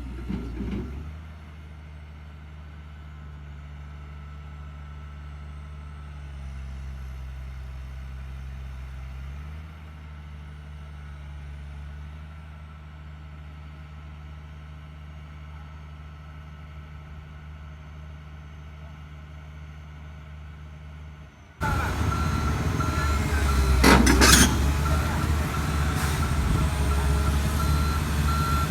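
Heavy construction machine's diesel engine running low and steady, its pitch shifting for a few seconds. About three-quarters of the way through it becomes much louder, with a short sharp burst of noise, then a reversing alarm beeping steadily near the end.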